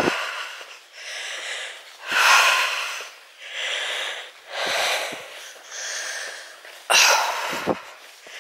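A hiker's heavy, wheezing breathing, in and out about once a second, from the effort of climbing a steep hill under a full pack.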